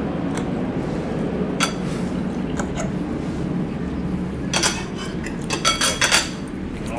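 Forks clinking against plates as people eat: a few scattered clinks, then a quicker run of them in the second half, over a steady low hum.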